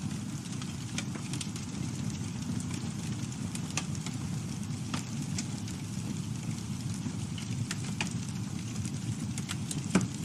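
Campfire burning: a steady low rumble of flames with scattered sharp crackles and pops from the burning wood, one louder pop near the end.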